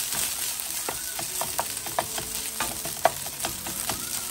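Rice and corn frying in butter in a pan, with a steady sizzle, while a utensil stirs the rice and knocks against the pan in frequent short clicks, the sharpest about three seconds in.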